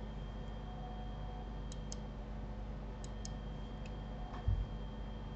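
Computer mouse clicking, several press-and-release pairs of sharp clicks, over a steady electrical hum. A brief low thump about four and a half seconds in is the loudest sound.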